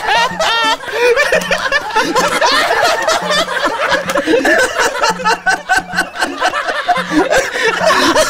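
Several men laughing hard at once, their wild, pitch-swooping laughs overlapping, over a low bass note that pulses in a repeating beat.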